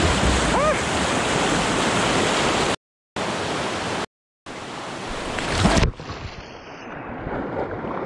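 Whitewater rapids rushing loudly around a kayak, a steady dense roar broken twice by short silences. Just before six seconds in it swells to its loudest, then falls away to a quieter, duller rush.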